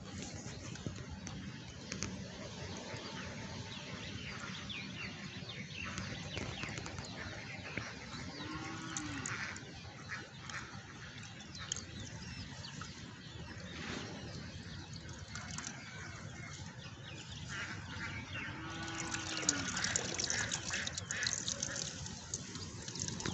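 Water sloshing and dripping as a wet cast net is gathered by hand and lifted out of shallow river water, over a steady background hiss. Two short rising-and-falling calls come about ten seconds apart, and the water sounds grow louder near the end.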